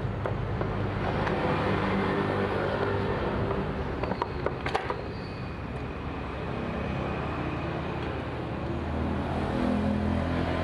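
An engine running steadily with a low hum, with a couple of sharp metallic clicks about four to five seconds in.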